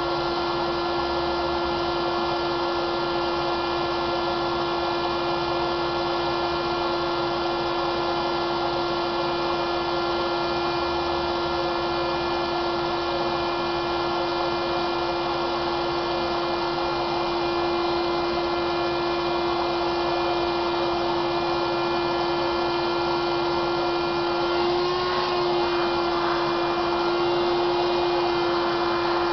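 Electric blower motor running steadily with a constant whine, pushing air through a hose to inflate a 350-gram weather balloon. A brief rustle and waver in the tone near the end.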